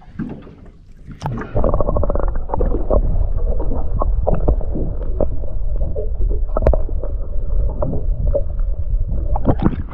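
Muffled underwater rumble and sloshing heard through a camera's waterproof housing as it is dunked below the sea surface about a second and a half in, with small knocks and ticks of water against the housing.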